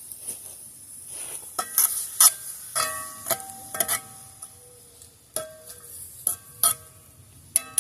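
A utensil knocking and scraping in a metal pot as onions are stirred into butter, about a dozen irregular clanks, many leaving a short metallic ring. A faint steady high hiss runs underneath.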